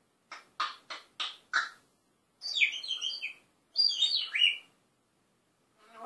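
African grey parrot calling: a quick run of five short clipped sounds, then two longer chirping whistles that slide up and down in pitch.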